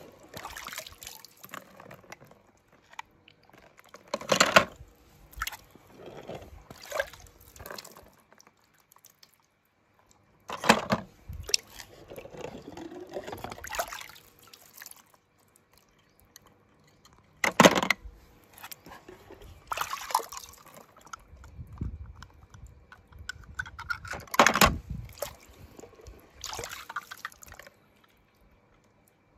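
Water splashing and sloshing in irregular bursts as a hand dips small die-cast toy cars into and out of shallow water, with drips between; there are several sharper splashes a few seconds apart.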